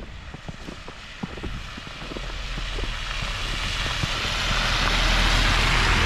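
A road vehicle approaching and passing close by: its tyre noise and engine rumble swell steadily and are loudest near the end. Before it nears, a quick, irregular run of small crunches or taps is heard.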